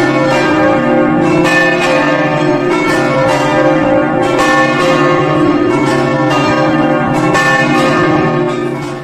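Several church bells ringing together, strokes following one another so that the tones overlap into a continuous peal, fading away near the end.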